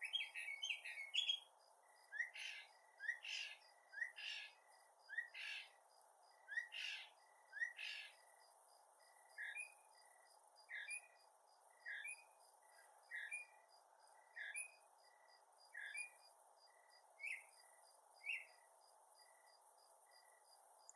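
Northern mockingbird singing, repeating each phrase several times: a quick run of notes at the start, then loud rising notes about once a second, then softer short phrases spaced a little over a second apart.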